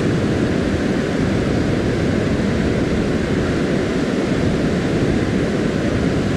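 Steady rushing of a waterfall and river rapids, an even, unbroken noise.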